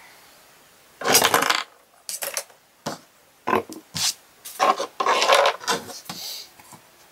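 Craft things being handled on a tabletop: a run of rubbing scrapes and knocks, the longest about a second in, as the scissors are cleared away and a small wooden board is brought in and set down.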